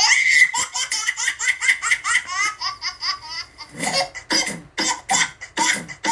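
Laughter in quick repeated bursts, set against background music with a steady beat that comes to the fore about four seconds in.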